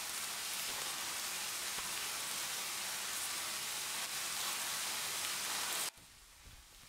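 Steady rain falling, a dense even hiss that cuts off abruptly about six seconds in, leaving only faint quiet room tone.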